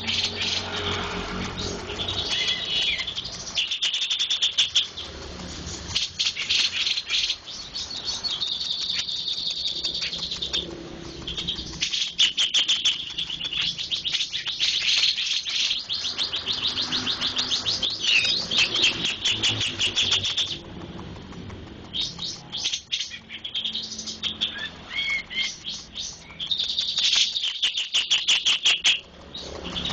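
Burung jenggot songbird singing a long, busy song of rapid high chirps and fast trills, with a short lull about two-thirds of the way through.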